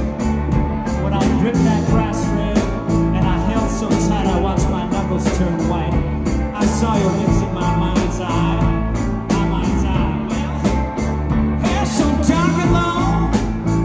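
Live rock and roll band playing loudly: electric guitar over bass and drums with a steady beat, and a singer's voice at times.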